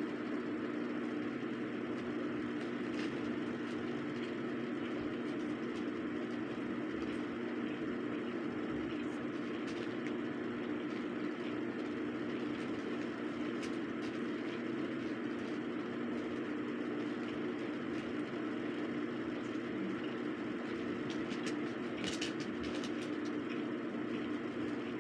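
A steady low hum, unchanging throughout, with a few faint clicks near the end.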